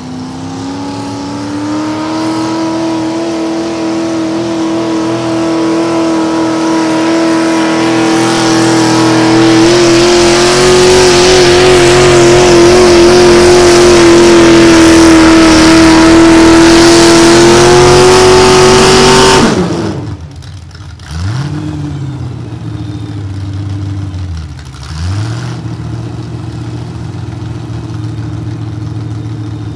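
Mini modified pulling tractor's engine at full throttle dragging a weight-transfer sled, a steady high note growing louder as it comes down the track, its pitch wavering midway through the pull. About twenty seconds in the throttle is let off and the note drops suddenly, then the engine idles with two brief revs.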